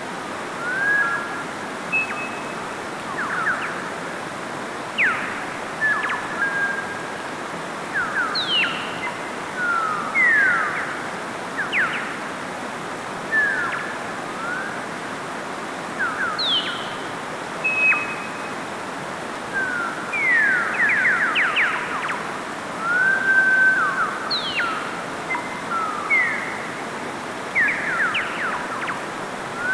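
Steady rush of a mountain stream cascading over rocks. Over it, birds keep calling: short whistled chirps and quick sliding whistle notes about once a second, louder than the water.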